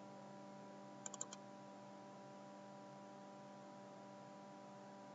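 Near silence with a faint steady electrical hum, broken about a second in by a quick run of about four faint computer keyboard clicks.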